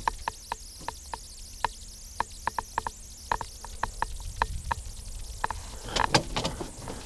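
A rapid, uneven series of sharp clicks, about three a second, from the Linhai Big Horn 400 UTV's two-/four-wheel-drive switch and engagement mechanism being worked with the engine off; the four-wheel drive does not stay engaged, which the owner takes to mean it is stuck.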